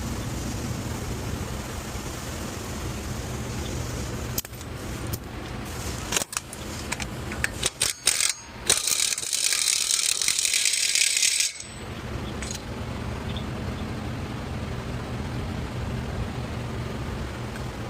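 Metal hand tools clinking and rattling during shop work on a pickup, then a loud hiss for about three seconds that cuts off suddenly, over a steady low hum.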